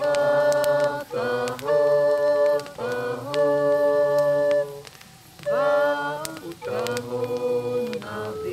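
Unaccompanied voices singing a cappella: long held chords in short phrases of about a second each, with brief breaks and sliding changes of pitch between them.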